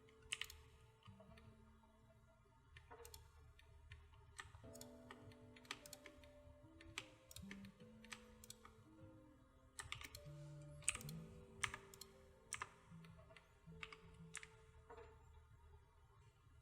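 Computer keyboard keys and mouse clicks tapping irregularly, a dozen or so sharp clicks, over faint background music of soft held notes.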